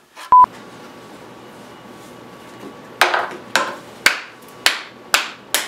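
A short, loud, high beep, then from about three seconds in a run of sharp knocks about two a second, coming faster near the end.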